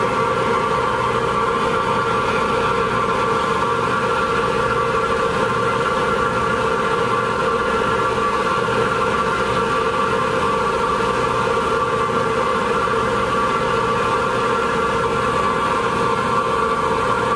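A ferry's engines running steadily: a constant hum made of several unchanging tones, with no change in pitch or loudness.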